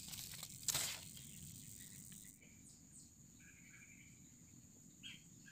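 Swamp ambience: a steady high insect buzz, with faint short bird chirps in the second half. One brief sharp noise, the loudest thing, comes less than a second in.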